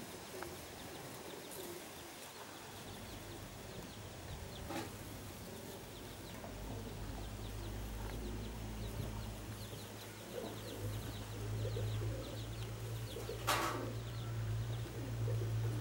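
Domestic pigeons cooing. A low steady hum comes in about six seconds in, and there is a single sharp knock near the end.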